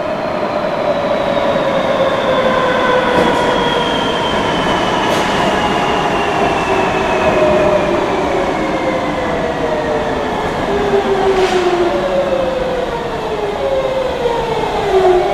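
Madrid Metro Serie 3000 electric train pulling into a station platform and braking, with a steady rumble of wheels on the rails. Its motor whine, several tones at once, falls steadily in pitch as the train slows, and levels off near the end as it comes to a stop.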